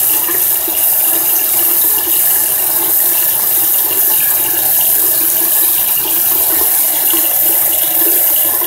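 Water running steadily from a tap, loud and unbroken.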